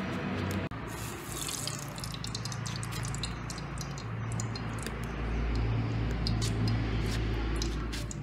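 Cooking oil heating in a steel wok over a wood fire, with scattered crackles and pops over a low steady rumble that grows louder in the second half.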